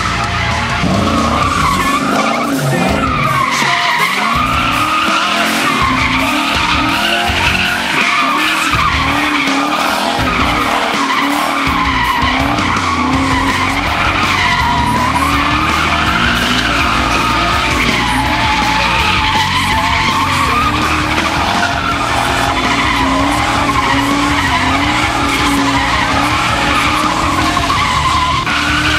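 V8-swapped Nissan 240SX drifting: the engine revs up and down while the rear tires squeal continuously, the pitch rising and falling with each swing of the throttle.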